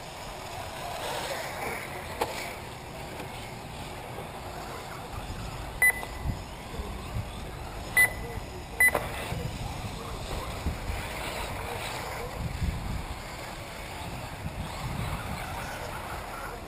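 Electric 1/8-scale RC off-road buggies running on a dirt track, a steady noisy wash with wind on the microphone, with three short high beeps about six, eight and nine seconds in.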